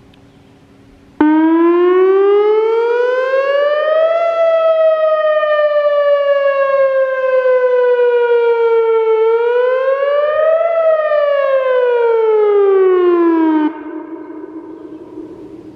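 Whelen WS-2802 electronic outdoor warning siren sounding a wail. It switches on abruptly about a second in, rises in pitch for about three seconds, falls slowly, rises again briefly and falls, then cuts off abruptly near the end, leaving a fading echo.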